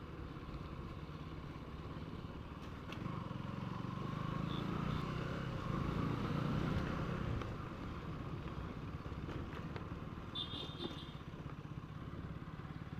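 Motorcycle engine running steadily, picking up a little about three seconds in and easing back again about halfway through. A brief high-pitched tone sounds near the end.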